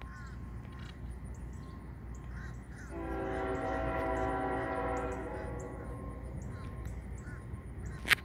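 Distant CSX diesel locomotive air horn sounding one long chord of about two seconds, a few seconds in, over a steady low rumble. A single sharp click near the end.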